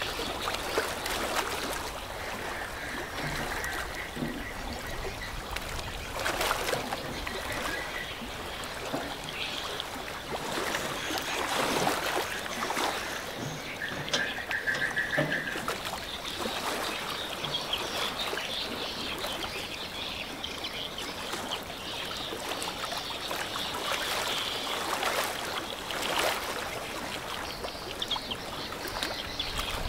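Water lapping and splashing in an even wash, broken now and then by sharper splashes, with a few short high tones in the first half.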